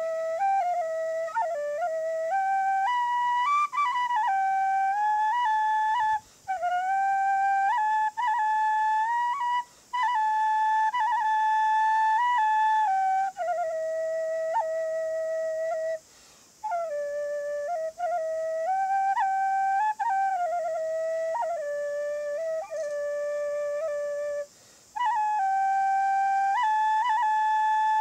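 Solo khlui, a Thai duct flute, playing a slow melody of held notes with quick ornamental grace notes. It plays in five phrases, each broken off by a short breath pause.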